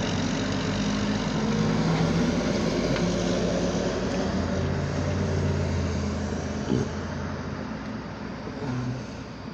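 Road traffic passing close by: a utility bucket truck and then a pickup truck drive past, with engine hum and tyre noise that eases off over the last two seconds or so.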